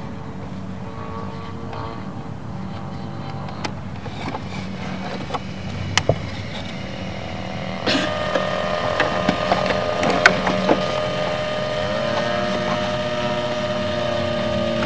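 Battery leads and plastic connectors clicking as they are handled and plugged into a large RC helicopter's battery bay, over a steady engine-like drone whose pitch steps up about twelve seconds in.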